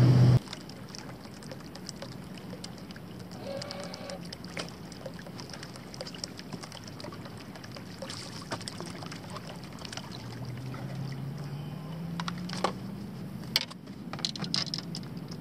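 Quiet on-the-water ambience aboard a small fishing boat, with water lapping softly and a faint low hum that rises in pitch about ten seconds in. A few sharp clicks near the end as tackle is handled.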